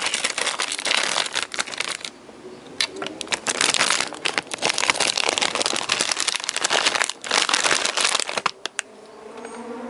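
Irregular bursts of dense crackling and rustling, with short quieter gaps about two seconds in and again near the end.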